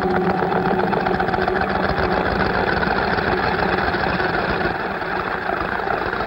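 A machine running with a fast, even rattle, as the tail of gliding electronic music fades out in the first second or so.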